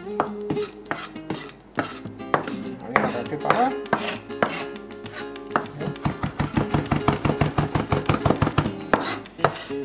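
Chef's knife chopping fresh cilantro on a wooden cutting board: a run of quick knife strikes against the board. The strikes are uneven at first, then settle into a fast, even rhythm of about four to five a second from about halfway through.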